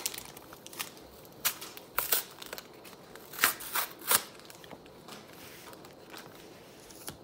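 Pokémon trading cards and a foil booster-pack wrapper being handled: a handful of short crinkling rustles, the loudest two about three and a half and four seconds in.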